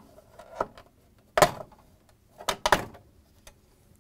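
Plastic front trim of a refrigerator control panel being pried off: several sharp clicks and snaps as its clips let go, the loudest about a second and a half in.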